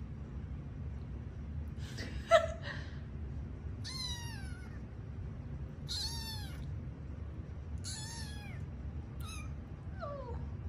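Young kittens meowing: about six short, high, thin meows roughly every two seconds, most falling in pitch, the loudest and sharpest about two seconds in.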